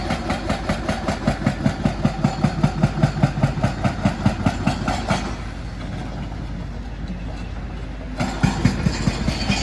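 Heavy diesel demolition machinery running, with a fast, even rhythmic clatter that stops about five seconds in, leaving a steadier hum, and starts again near the end.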